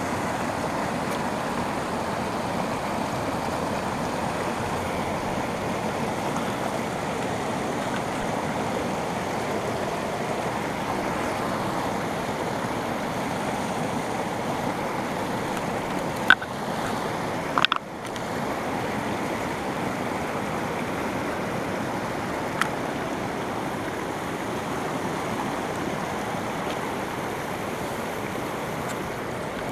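River water rushing over a rock pile and small rapids, a steady rush. A few sharp clicks a little past halfway.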